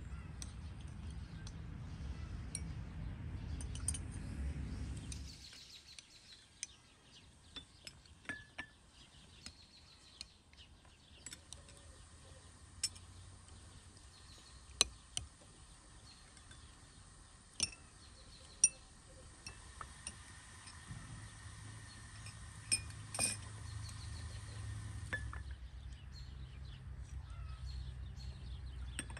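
Teaspoons clinking against glass tea glasses, cut-glass jam bowls and china saucers, in sharp, single clinks scattered a second or more apart. A low rumble underneath drops away about five seconds in and comes back in the last third.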